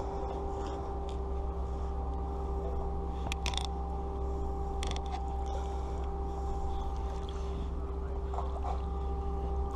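Canal narrowboat's engine running at a steady low drone as the boat passes.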